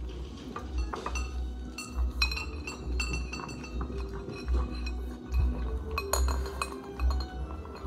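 A pug eating out of a ceramic bowl, its muzzle and metal collar tag knocking the bowl in repeated sharp clinks that ring briefly.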